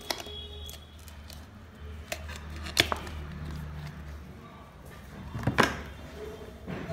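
Cardboard product box being opened and unpacked by hand: card and paper sliding and rustling, with a few sharp clicks and taps, the loudest about five and a half seconds in, over a low steady hum.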